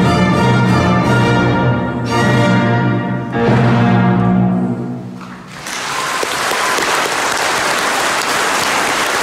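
An orchestra plays the closing chords of a classical piece, the last chord held and fading about five seconds in. The audience then breaks into steady applause.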